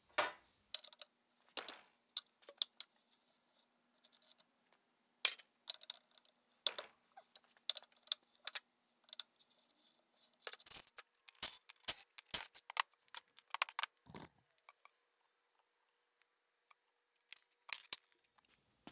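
Metal tool clinks and clicks of a wrench working the bolts on an old cast-iron two-stage air compressor pump during teardown, with a quick run of clinks about eleven to fourteen seconds in. Near the end there are a few more clinks as a finned cylinder part is set down on the bench's steel plate.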